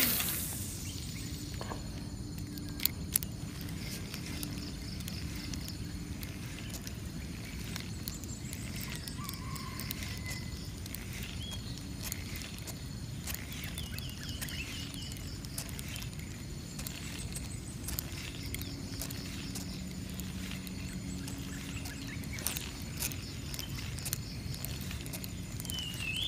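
Quiet lakeside ambience: a steady low hiss with a few faint bird chirps around the middle and scattered light clicks. A brief sharp swish right at the start, as the lure is cast.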